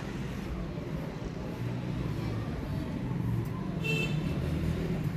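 A low, steady rumble like distant motor traffic, growing slightly louder, with a short bird call about four seconds in.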